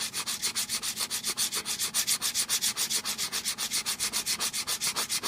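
Aftermarket 1911 trigger rubbed by hand on a sanding block in fast, even back-and-forth strokes, about eight a second. Light passes with almost no pressure polish the gritty textured finish off its sides.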